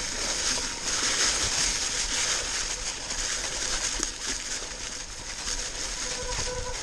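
Mountain bike tyres rolling through a thick layer of dry fallen leaves: a steady rustling with fine crackles.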